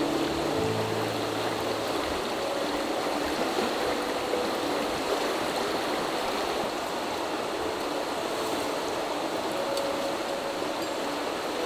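Mountain stream running over a stony bed: a steady rush of water.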